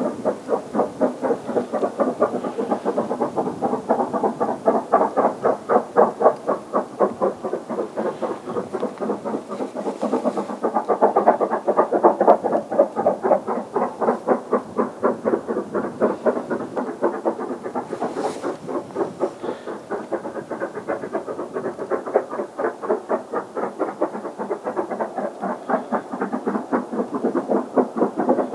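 Chinese QJ-class 2-10-2 steam locomotive working hard up a steep grade with a heavy freight train, its exhaust beating in a steady, rapid rhythm.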